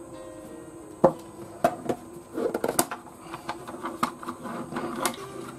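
A plastic hard-drive docking station being handled and set down on a wooden tabletop: scattered light knocks and scrapes at irregular intervals, the sharpest about a second in.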